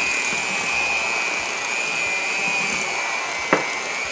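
Black & Decker electric hand mixer running steadily with a high whine, its beaters whipping buttercream icing in a glass bowl. One sharp knock sounds about three and a half seconds in.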